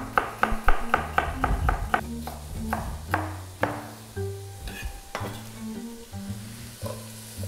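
Chef's knife chopping celery on a plastic cutting board: quick cuts about four a second for the first few seconds, then fewer and sparser. Background music with a bass line plays underneath.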